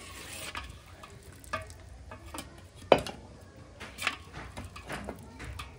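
A metal spoon scraping and clinking in a cooking pot as thick gravy is handled, with a few short knocks and one sharp clink about three seconds in.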